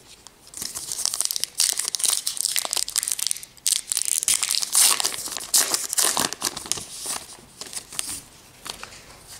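A baseball card pack's crimped wrapper being crinkled and torn open by hand, then the cards slid out of it: a run of sharp crackles and rips that starts about half a second in and thins to a few faint rustles near the end.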